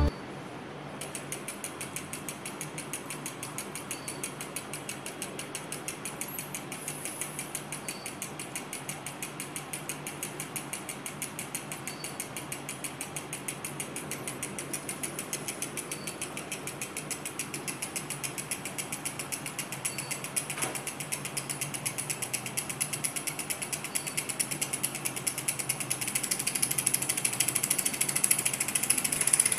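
Miniature flame-heated Stirling engine running, its flywheel and crank linkages giving a rapid, even clicking. The clicking starts about a second in and grows louder near the end.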